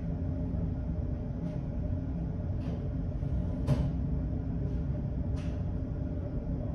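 Steady low drone of the ferry Hamayuu under way, its engines and hull making a constant rumble. A few faint ticks sound over it, the loudest about three and a half seconds in.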